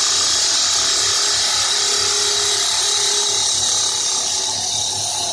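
CNC wood lathe cutting a spinning wooden bowl blank: a steady, high cutting hiss over the even hum of the machine.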